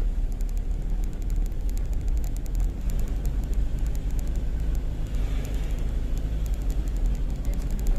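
A vehicle driving along a road: a steady low rumble of engine and road noise, with many faint light ticks over it.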